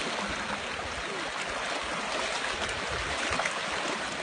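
Fast, muddy stream rushing over rocks: a steady rush of water.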